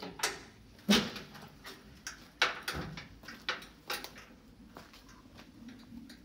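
Old wooden glass-paned door being unlatched and opened: a series of sharp clicks, knocks and rattles from the latch and the door, the loudest about a second in.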